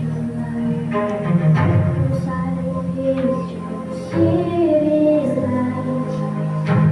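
Music with singing voices over held instrumental notes.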